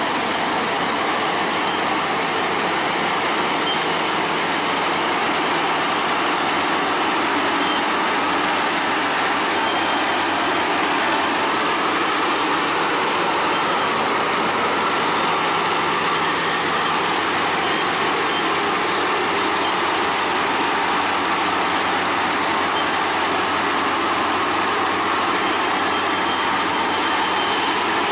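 Crown Sumo tracked combine harvester running steadily as it cuts and threshes rice, its engine and machinery making one even, continuous noise.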